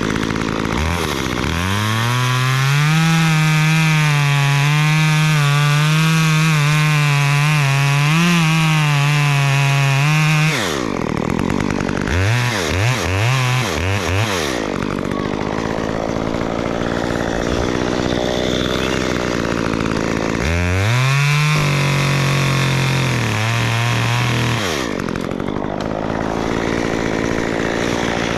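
Gas chainsaw revved to full throttle for a cut of about nine seconds, dropping back to idle with a few quick blips of the throttle, then a second, shorter full-throttle cut about 21 seconds in before it falls back to idle. The saw is bucking a tree trunk into 5 to 6 foot sections.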